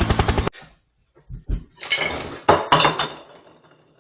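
A loud rhythmic chopping sound stops abruptly about half a second in. A couple of dull knocks follow, then two short bursts of hard objects clattering and clinking, which fade away.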